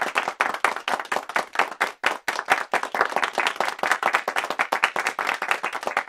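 Applause: many hands clapping in a dense, steady patter, with a short dip about two seconds in.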